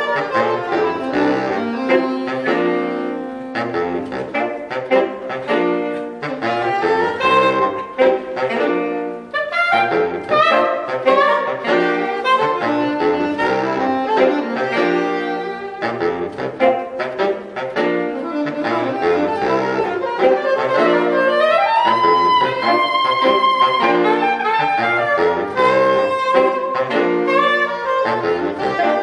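Saxophone quartet, baritone saxophone included, playing a fast, rhythmic passage of many short notes. About 22 seconds in, one saxophone slides up into a long held high note.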